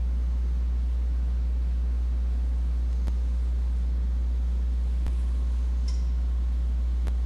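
Steady low hum with faint clicks about every two seconds; the challenge buzzer does not go off.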